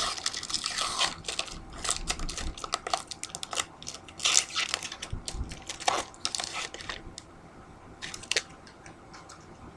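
Crinkling and clicking of a trading-card pack's wrapper being opened and the cards pulled out and handled, busy for about seven seconds, then mostly quiet with one more short rustle near the end.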